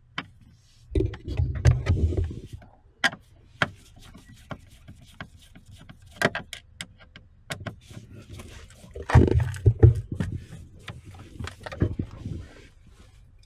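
Screwdriver and hands working at plastic dashboard trim panels: a run of sharp clicks and knocks, with two longer spells of clattering and rubbing, about a second in and again around nine seconds in.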